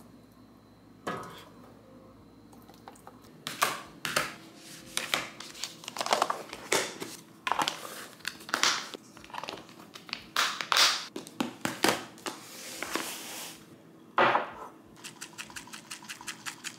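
Plastic meal-prep containers being handled, their clip-on plastic lids pressed down and snapped shut, giving a run of irregular plastic clatters and snaps. A quick series of small ticks follows near the end.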